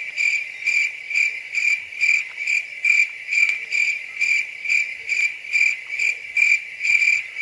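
High-pitched insect chirping in a steady, even rhythm, a little over two chirps a second.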